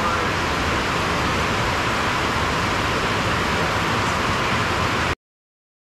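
A steady rushing noise with no pitch or rhythm, cutting off abruptly about five seconds in.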